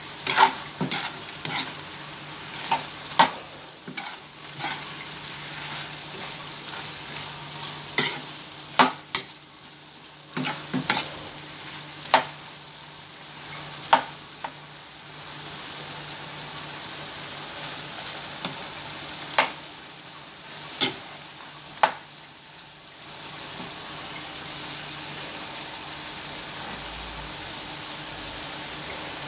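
Strips of pork and liver sizzling in a frying pan while a metal spoon stirs them, its strokes knocking against the pan as sharp clicks. The clicks thin out through the second half, and the last few seconds are steady sizzling alone.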